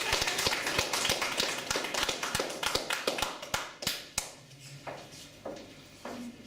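Small audience applauding. The clapping thins out and dies away about four seconds in, with a few scattered last claps after.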